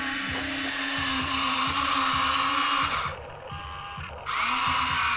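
Huina RC excavator's electric motors whirring with a steady whine. They stop about three seconds in and start again about a second later.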